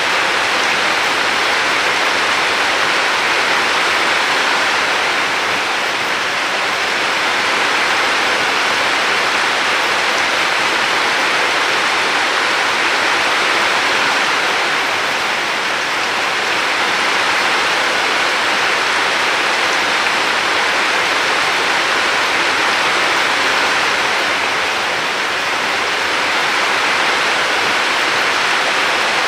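River water rushing steadily, an even dense hiss of flowing water with slow, gentle rises and falls in loudness about every ten seconds.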